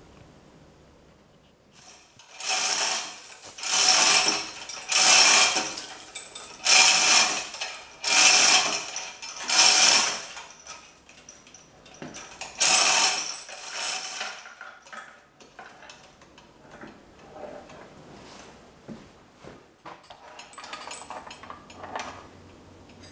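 Hand-operated chain hoist being worked, its chain rattling and clattering through the hoist in about eight bursts of roughly a second each. Lighter metallic clicks and knocks follow in the last third.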